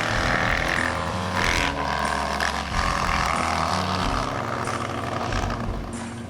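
Two-cylinder motorcycle engines, an inline twin and a boxer twin, running with a strong exhaust note. The sound changes abruptly a couple of times.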